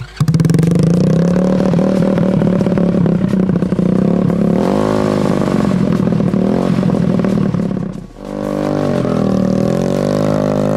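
A vehicle's gasoline engine running loudly, then dropping briefly about eight seconds in before revving up and down.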